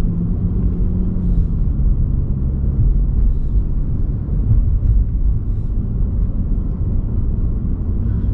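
Car being driven through city streets: a steady, low rumble of engine and road noise, with a faint engine hum that eases off within the first couple of seconds.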